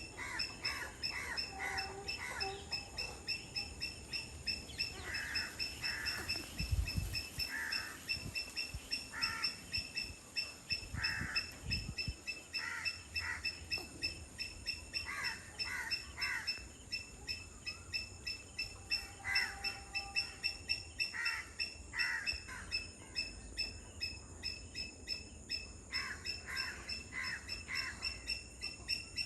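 Wetland birds calling over and over in short, repeated calls, sometimes in quick runs. A steady high-pitched drone runs underneath.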